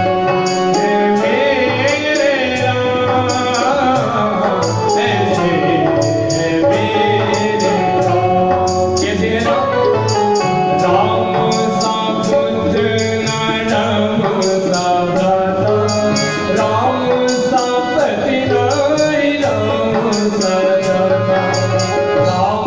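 A man singing a Hindi devotional bhajan through a microphone, with instrumental accompaniment and a steady percussion beat.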